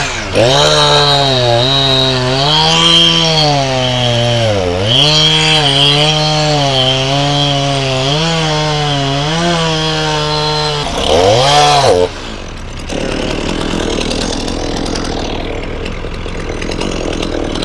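Chainsaw cutting through a log, its engine note dipping and recovering as the chain bites into the wood. Near the end of the cut it revs up briefly, then drops away, and a quieter engine runs on.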